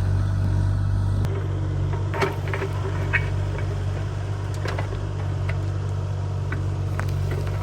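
Diesel engine of a Kubota excavator running steadily, with scattered short knocks and clicks from the machine at work.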